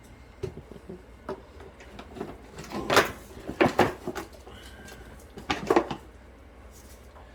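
Kitchen handling sounds: short, sharp clicks and knocks, in clusters of quick taps about three seconds in, around four seconds and again near six seconds.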